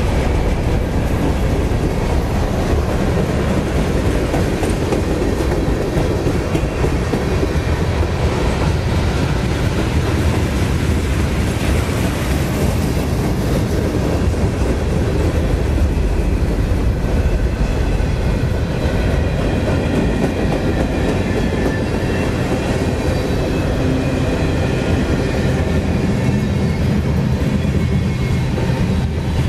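Freight train cars (hoppers, tank cars and boxcars) rolling past at close range: steady, loud wheel-on-rail noise that runs on without a break.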